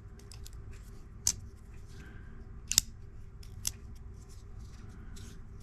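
CJRB Shale folding knife being worked open and shut: sharp metallic clicks of the blade and its crossbar lock, three in all, the middle one doubled.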